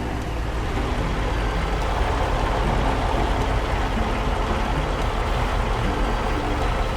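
Heavy diesel engine of logging machinery running steadily with a low rumble, growing slightly louder about a second in.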